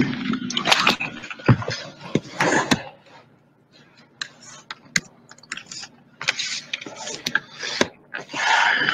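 Typing on a computer keyboard: irregular clicks of keys in short runs, with pauses between them.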